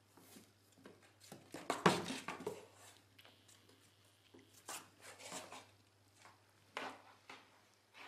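A cat pawing and scratching at a cardboard box lid: a run of scraping and knocking on the cardboard, loudest about two seconds in, then a few shorter scrapes.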